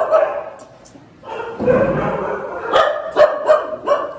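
Several street dogs barking and yipping in short bursts, with a brief lull about half a second in.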